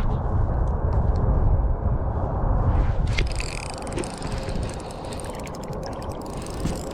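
Fishing reel cranking with a rapid, fine clicking from about three seconds in. Low wind rumble on the microphone is strongest before that.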